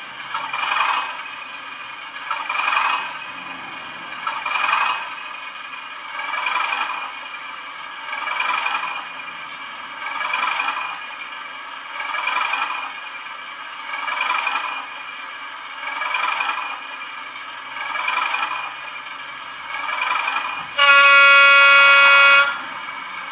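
Class 37 diesel sound from a LokSound v5 decoder in an OO gauge model locomotive, played through its small speaker: a swelling sound that repeats about every two seconds, then one horn blast lasting about a second and a half near the end.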